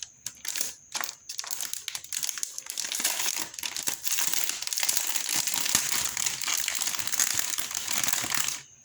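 Plastic wrapping crinkling as it is pulled off a new computer keyboard: scattered crackles for the first few seconds, then steady, dense crinkling that stops suddenly near the end.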